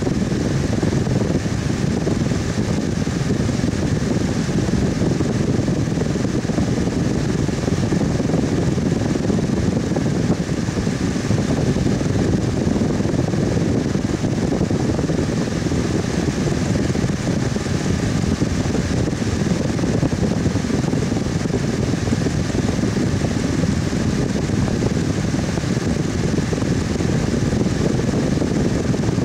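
Electric fan running steadily: a constant low whooshing hum of moving air, with a faint higher whir above it.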